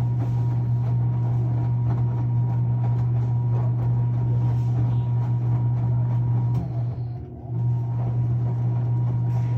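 Washing machine running with a loud, steady low hum that dips briefly about seven seconds in.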